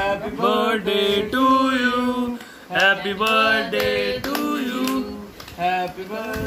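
Voices singing a slow melody, holding each note for about half a second to a second.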